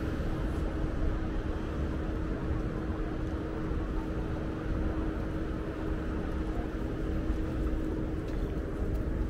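Steady city traffic rumble with a constant hum running through it.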